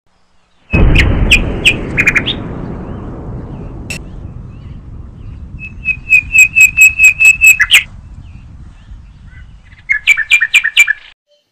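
A bird calling in quick runs of sharp, evenly repeated chirps. Under them is a deep rumble that starts suddenly about a second in and fades away slowly.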